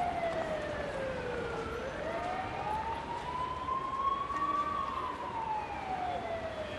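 A siren wailing slowly: its pitch falls until nearly two seconds in, rises for about three seconds, then falls again, over a hiss of background noise.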